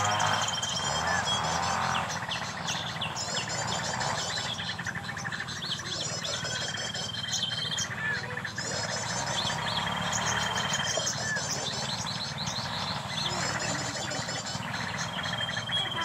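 Sunbird calls: a high, thin whistle held about a second and fast chittering trills, the same pattern coming back about every four seconds, as in a bird-luring session.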